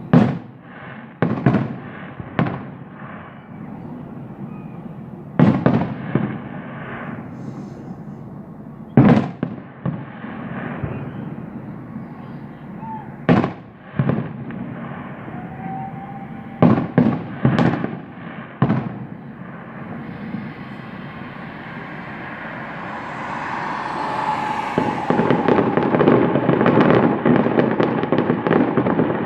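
Fireworks going off: a dozen or so separate sharp bangs, some in quick pairs and triplets, then a dense, continuous crackling that builds up from about two-thirds of the way in and keeps going.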